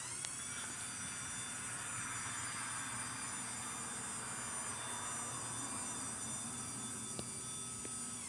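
LiftMaster 87504-267 belt-drive garage door opener running, moving the door: a steady, even whir from the motor and belt, whose pitch begins to fall as it slows at the very end.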